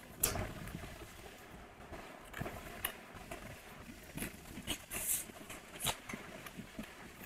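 A paperboard retail box being opened by hand: soft clicks and scrapes as its flaps fold back, and a brief rustling slide about five seconds in as the inner tray comes out.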